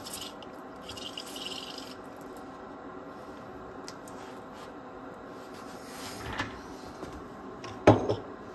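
Quiet handling noises from working on the cassette deck's parts and boards: light rubbing and a few small clicks over a steady low hum. A short, sharp, louder sound comes near the end.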